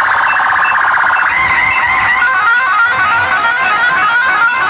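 Loud DJ music played through a rig of horn loudspeakers, nearly all midrange with little bass. A fast, repeating melodic run takes over about a second in.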